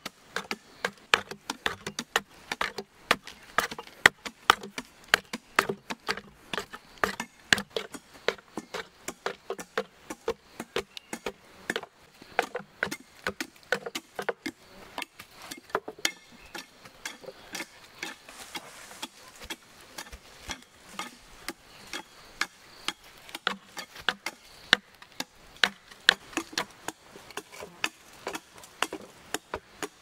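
Hollow log sections being hollowed out by hand to make log beehives: a steady run of sharp wooden knocks and chipping, a few a second, as a long pole tool is thrust into the log to break out its inside, with scraping from a hand tool. The knocks thin out a little around the middle.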